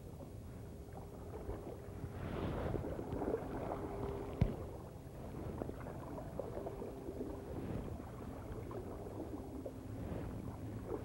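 A canoe paddle working the water beside a canoe hull: soft swishes and splashes over a steady hiss, with one sharp knock about four and a half seconds in.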